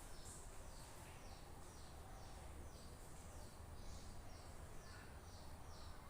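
Faint chirping of a bird: short, high, falling chirps repeated about twice a second over a steady low hum and background noise.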